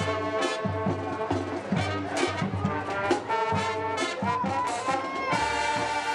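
Marching band playing: brass carrying chords and melody over a steady beat of bass drum and percussion, ending on a long held chord.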